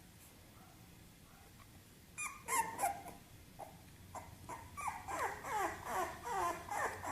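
A dog whimpering and whining: a few short sounds about two seconds in, then from about five seconds a steady run of short whines, each falling in pitch, two or three a second.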